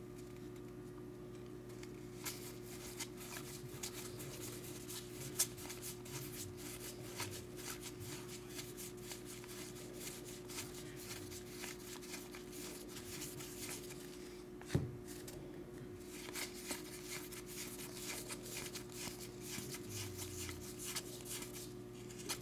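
Baseball cards being flicked through by hand, sliding off one stack onto another in a run of quick papery clicks, with a sharper snap about five and fifteen seconds in. A steady low hum sits underneath.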